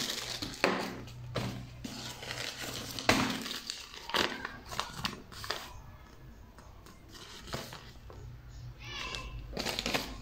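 A small clear plastic zip bag crinkling as it is handled, with scattered rustles and light knocks; it goes quieter for a couple of seconds in the middle.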